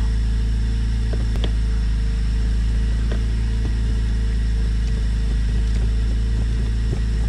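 A steady engine drone with low, even tones that do not change. A few light clicks and knocks come on top as the truck's jack holder and its fastener are handled.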